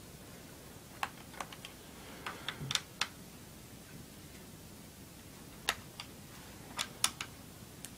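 Small screwdriver working the screws of an Acer laptop's plastic bottom cover: scattered sharp little clicks and ticks, several between about one and three seconds in and a few more near the end.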